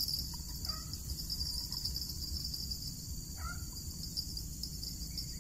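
Steady, high-pitched chorus of crickets and other insects over a low background rumble, with two short chirps, one about a second in and one past three seconds.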